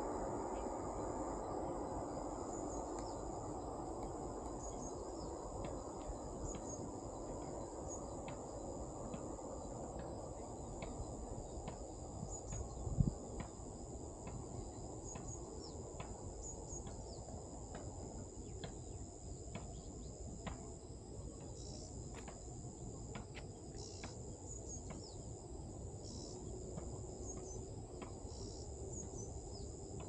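Steady high-pitched drone of insects, with short chirps scattered through it, over a low rumbling background that fades after about the first half. One brief thump about 13 seconds in.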